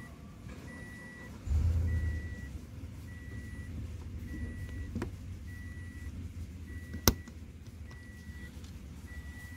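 Hand work on a car's door trim panel while its last screw is driven in with a screwdriver: a loud low rumble of handling for about a second from a second and a half in, and one sharp click about seven seconds in. A faint high beep repeats about once a second throughout.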